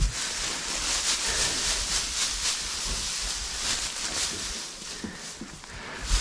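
Loose dry straw rustling as a flake of baled straw is shaken apart by hand and scattered over bedding. There is a thump at the start and another near the end.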